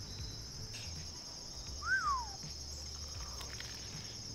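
Steady high-pitched insect chorus, such as crickets, with a single short bird whistle about two seconds in that rises and then slides down.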